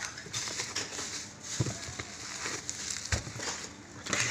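Bubble wrap and cardboard packaging crinkling and rustling as they are handled, with two dull knocks.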